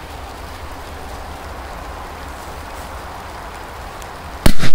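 Steady hiss, then about four and a half seconds in a Korsar 8 firecracker explodes under a metal milk can: a very loud bang with a second crack right after it, dying away within about half a second.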